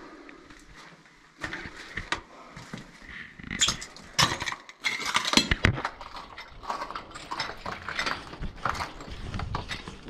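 An irregular clatter of knocks and clinks that starts about one and a half seconds in and gets busier and louder.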